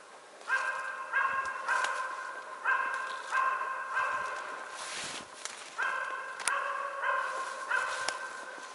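West Siberian Laika barking in a steady series of about ten barks, often in pairs. Footsteps rustle through dry grass.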